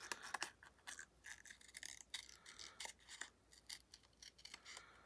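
Large scissors snipping paper in short, irregular cuts, faint clicks about three a second.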